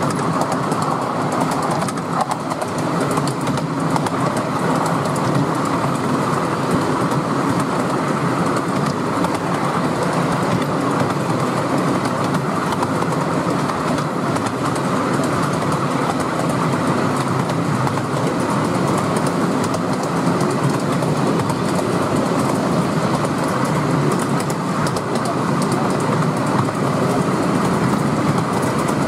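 Miniature railway train running steadily behind a steam locomotive, heard from an open passenger carriage: a continuous rumble of wheels running on the rails. The locomotive is a scale model of Southern Railway rebuilt Merchant Navy-class 4-6-2 No. 35004.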